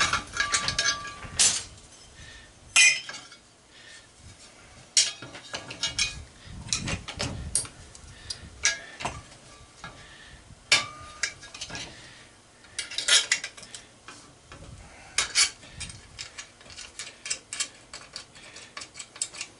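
Loose metal scrap parts clinking and clanking as they are handled and set down: irregular sharp knocks, a few louder clanks that ring briefly.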